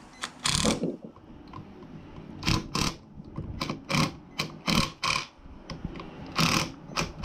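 Irregular short clicks and clacks of hand tools and small bolts working on the scooter engine, as the 8 mm bolts holding the plastic cooling fan to the flywheel are run in. The clicks come a few at a time, in small clusters.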